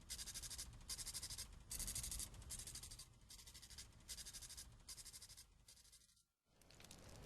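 Smoke monster sound effect: a rattling mechanical clicking in a string of short bursts just under a second apart, over a low rumble. It breaks off briefly near the end, then a rushing swell starts to rise.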